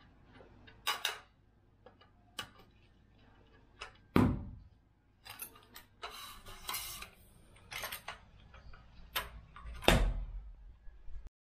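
Metal curtain rod and its brackets being unscrewed and taken down with a hand screwdriver: an irregular series of sharp clicks, clanks and knocks. The loudest thumps come about four seconds in and near the end.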